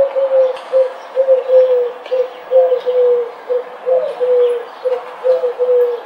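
A dove cooing: low coos repeated in short phrases of a few notes, one phrase after another, with faint high chirps in the background.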